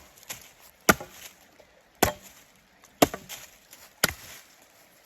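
Four sharp blows of a tool's hammer side on wood, about a second apart, breaking up logs.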